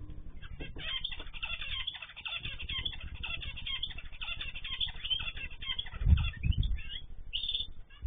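Small aviary birds such as finches and canaries chirping and twittering in many quick, overlapping short calls, with a steady low hum of the security camera's microphone underneath. A few loud low thumps come about six seconds in.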